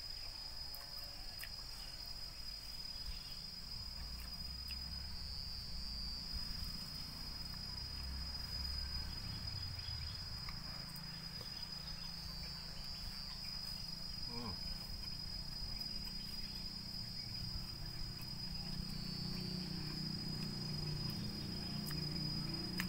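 A steady high-pitched insect drone, swelling briefly three times, over a low rumble that grows louder near the end.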